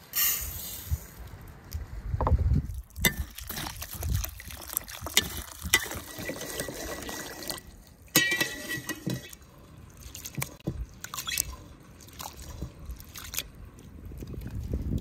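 Water sloshing and trickling in an enamel bowl as rice is washed by hand, with a metal spoon clicking and knocking against the bowl.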